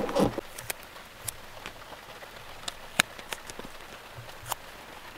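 Steady rain falling on the roof of a Toyota Hiace van, with scattered sharp ticks, the loudest about three seconds in. A short louder sound comes right at the start.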